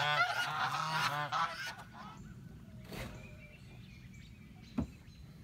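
Geese honking: a quick run of short calls over the first two seconds that then stops, leaving a faint knock near the end.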